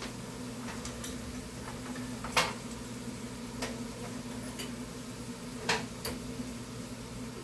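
A spoon clinking and tapping a few times against a bowl and a nonstick pan while pineapple is spooned in. The loudest tap is about two and a half seconds in, with two more close together near the end. A steady low hum runs underneath.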